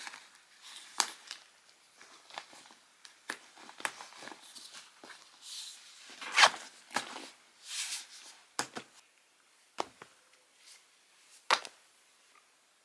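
Small objects being handled at close range: irregular light clicks, taps and short rustles. The sharpest click comes about six and a half seconds in.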